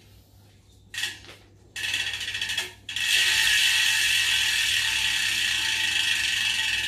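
Rear bicycle hub's freehub pawls ratcheting as the wheel is spun by hand: two short bursts, then a long, steady, fast clicking buzz from about three seconds in. The hub is a Powerway.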